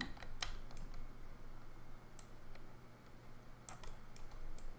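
Computer mouse and keyboard clicks: a scattered, irregular run of short, sharp clicks, about nine in all, over a faint steady low hum.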